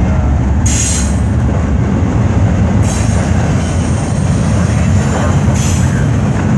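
CN double-stack intermodal freight train rolling past close by: a steady loud rumble of steel wheels on rail, with two brief high-pitched bursts from the wheels, about a second in and near the end.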